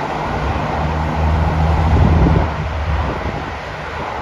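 Steady road-traffic noise from a busy dual carriageway, with wind on the microphone. A low engine drone swells to its loudest about two seconds in, then fades.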